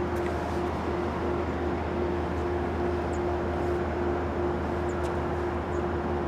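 Steady mechanical drone: a constant low hum with one steady held tone above it. A few faint short high chirps come through near the middle and end.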